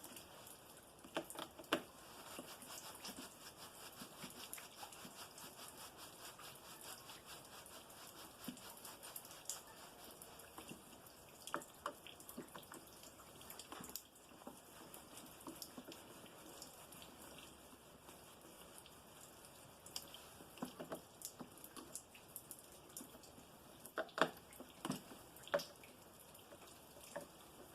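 Faint, scattered clicks and ticks of a screwdriver and screws being driven back into a snowblower's plastic housing, gently rather than cranked tight, with a cluster of sharper clicks near the end.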